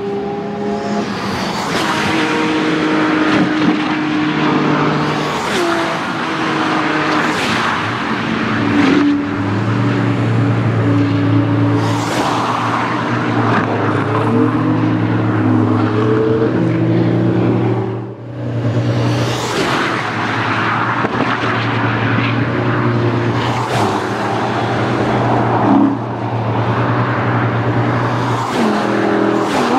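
High-performance track cars accelerating hard past at speed, one after another. Their engines rev high and shift up through the gears, with a string of close pass-bys. There is a short lull about 18 seconds in.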